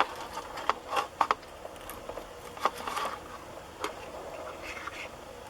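Scattered light clicks and taps of small hard parts being handled, several close together at first, then single ones further apart.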